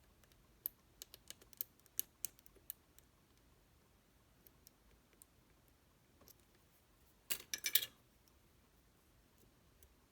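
Small, sharp clicks of a lock pick working the pins inside a Zeiss Ikon SK6 cylinder lock: a quick run of about a dozen clicks in the first three seconds, a few faint ones, then a short rattling cluster about seven and a half seconds in.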